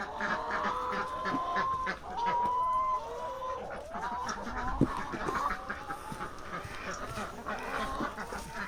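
Farm animals calling: a run of drawn-out calls of about a second each, one after another, over scattered short clucking sounds.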